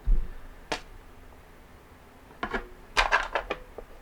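A small plastic battery quick charger being handled: a soft thump, a sharp click about a second in, then a short run of clicks and rattles of plastic near the end.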